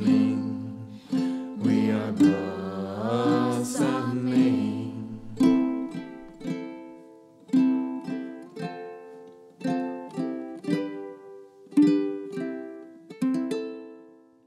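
Closing bars of a song on ukulele. Voices hold a last note for about the first five seconds, then the ukulele plays single plucked notes alone that die away near the end.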